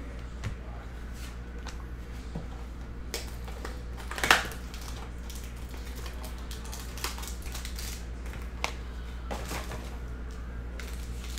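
A cardboard trading-card box being opened by hand and its cellophane-wrapped card pack handled: scattered light taps and plastic crinkles, with one louder rustle about four seconds in. A steady low hum runs underneath.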